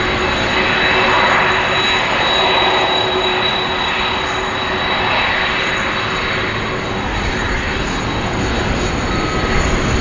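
Boeing 767-300ERF freighter's CF6 turbofan engines running at taxi power: a steady jet whine with a high whistle over a broad roar. A low rumble builds about seven seconds in.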